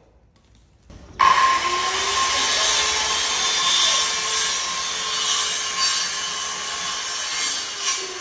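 Small handheld electric saw cutting a wooden trim strip, starting suddenly about a second in with a steady whining cut, then easing off near the end.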